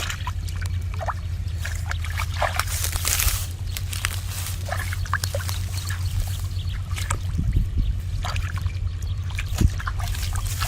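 Shallow field water sloshing and trickling, with many small irregular splashes, as the water is stirred by hand. A steady low rumble runs underneath.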